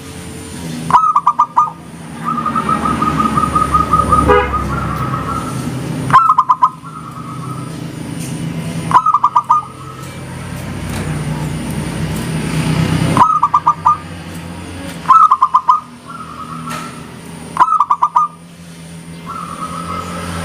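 Zebra dove (perkutut) cooing: six short, loud phrases of quick coos spaced a few seconds apart, with softer rolling coos between some of them, over a steady low rumble of background noise.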